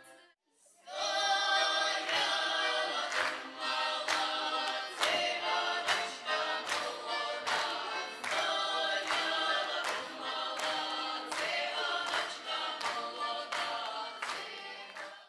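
Women's folk ensemble in Ukrainian costume singing together, with a steady beat of sharp strikes underneath. The singing starts about a second in after a brief silence and cuts off suddenly at the end.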